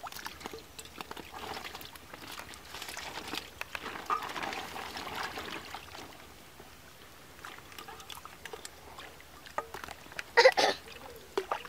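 Water sloshing and dribbling as a metal bowl scoops live fish out of a cast net in shallow water, with scattered small splashes and clicks. A short high-pitched voice cuts in near the end.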